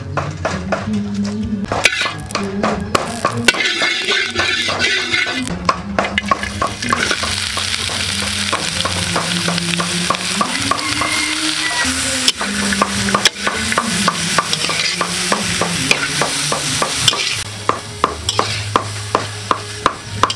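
A metal spatula scraping and clinking against a steel wok as sliced onions are stir-fried in hot oil, with the sizzling growing loud about six seconds in.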